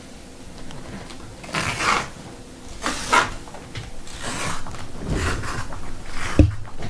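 Trading cards and their plastic holders being handled: several brief rustling, sliding sounds, with a sharp click about six seconds in.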